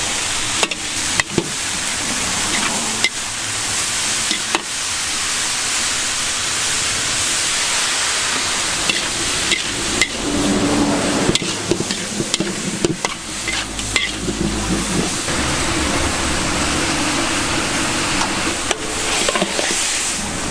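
Bean sprouts and vegetables sizzling in a large steel wok over high heat, with a steady hiss. A metal wok spatula stirs and tosses them, scraping and clinking against the wok now and then.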